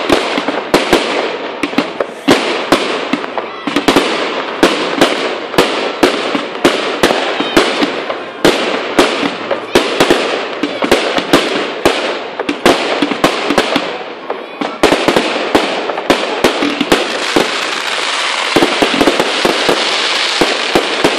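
Aerial fireworks display going off in rapid succession: sharp bangs two or three a second with crackle between them. Near the end the bangs thin out into a steady hiss.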